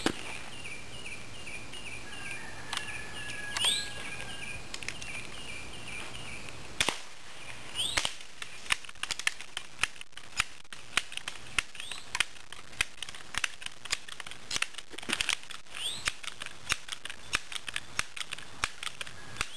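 Sharp cracks of Crosman 1377 multi-pump pneumatic pellet pistols firing at balloon targets: a few spaced shots in the first eight seconds, then many quicker, smaller clicks and knocks from handling the pistols. Birds chirp faintly in the background.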